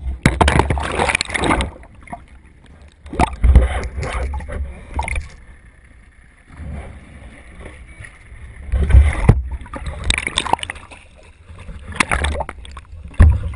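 Water splashing and gurgling around a topwater popper lure that carries the camera, in four surges as the lure is popped through the surface.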